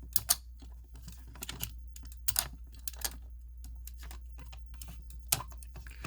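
Scattered light clicks and taps of a fire alarm pull station being handled as its spring is taken out, over a low steady hum.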